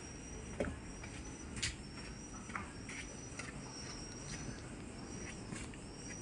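An insect chirping in thin, high-pitched trills that repeat about once a second, with a few light clicks and knocks in between.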